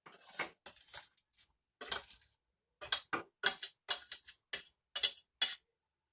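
Metal spoon scraping and clinking against a cooking pot in a run of short strokes, with a longer scrape in the first second, as cooked moong dal is spooned in.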